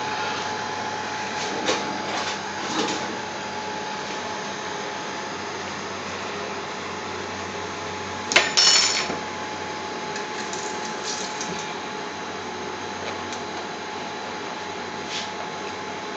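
A steady whirring hiss with one constant tone, with a few light knocks a couple of seconds in and a loud sharp clatter about eight and a half seconds in.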